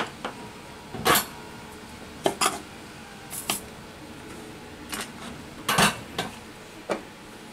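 Irregular short clinks and clicks of small metal tools being handled and set down on a repair bench, about eight in all, the loudest about a second in and near six seconds.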